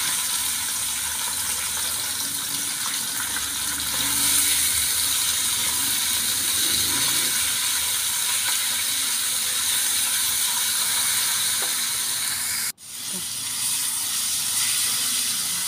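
Raw chicken pieces sizzling in a hot wok with onion and garlic, a steady hiss as they are stirred with a spatula. The sizzle breaks off for an instant near the end, then resumes.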